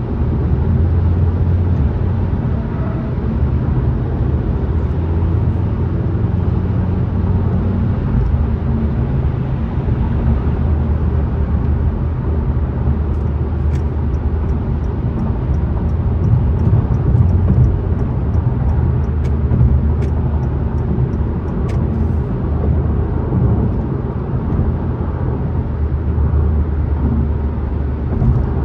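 A car driving on a freeway: steady low road and tyre rumble with engine noise. A faint, quick ticking comes and goes for several seconds midway.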